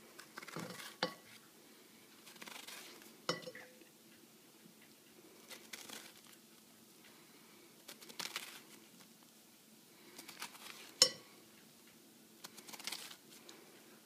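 Kitchen knife scoring the thick rind of a pomegranate: short scratchy cuts every couple of seconds, with a few sharp clicks, the loudest about eleven seconds in.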